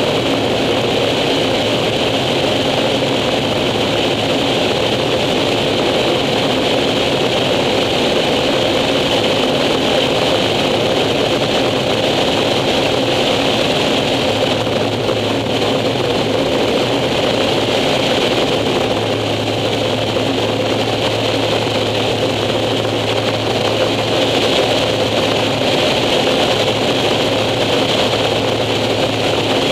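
Air Tractor 402B's Pratt & Whitney PT6A turboprop engine and propeller running steadily in flight, heard on board during the approach to land. A low steady tone strengthens about two-thirds of the way through.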